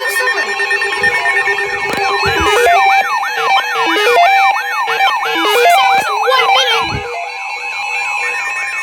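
Weather alert radio sounding its warning alarm between alert messages: a siren-like rising sweep that repeats about two to three times a second, over steady high tones and stepping electronic beeps.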